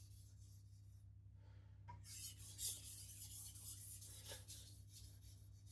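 Knife edge drawn lightly across a whetstone under only its own weight, a faint high scraping hiss in short strokes, pausing about a second in. These are light deburring passes to clean up the burr left by coarse sharpening.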